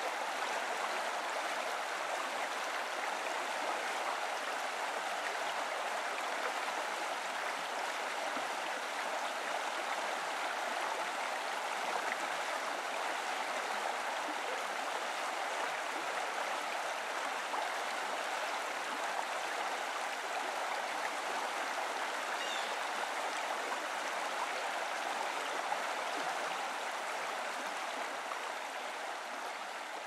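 Steady rushing of water from a small waterfall spilling over a stone wall into a rocky creek, fading out near the end.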